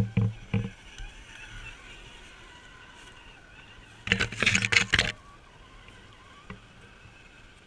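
Scale RC crawler's electric motor and gears whining faintly and steadily as it crawls over a leaf-litter trail, after a few knocks near the start. About four seconds in there is a loud second-long rustle of leaves and branches brushing against the camera.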